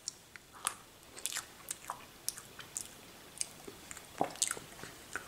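A person chewing a mouthful of soft tiramisu: faint, irregular wet mouth clicks and smacks.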